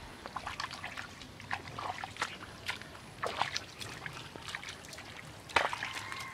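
Wet mud and shallow water squelching and trickling, with many short irregular clicks and splashes and a sharper one about five and a half seconds in.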